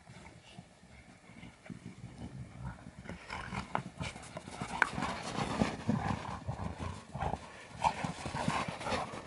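Two dogs romping on packed snow: irregular crunching thuds of their paws as they chase and wrestle, louder from about three seconds in.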